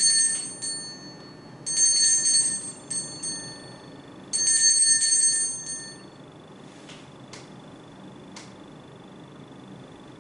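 Altar bell rung three times, each ring lasting about a second, marking the elevation of the host at the consecration of the Mass.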